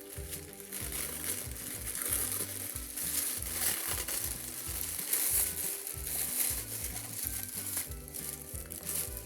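Plastic packaging crinkling and crackling irregularly as fidget toys are handled and unwrapped, with background music underneath.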